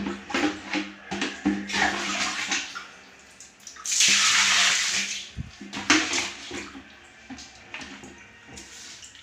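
Water rushing and splashing onto a tiled bathroom floor at a floor drain for about a second and a half, starting about four seconds in, with a shorter splash near two seconds. Scattered clicks and knocks of handling and slipper steps on the wet tiles come before and after.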